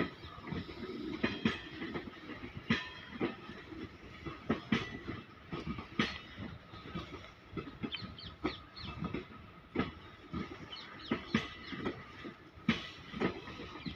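Goods train of blue covered NMG wagons rolling slowly past, its wheels knocking irregularly over the rail joints.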